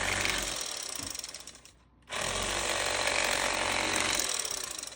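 Bubba electric fillet knife running as it cuts through perch, a steady mechanical buzz. It runs a little under two seconds, stops briefly, then runs again for about two seconds.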